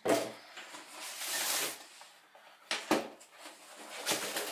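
Packaging rustling as the contents of a tripod box are handled, with a few sharp clicks about three seconds in.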